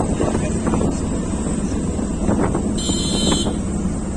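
Steady low rumble of wind buffeting the microphone while moving. A short high-pitched beep sounds about three seconds in.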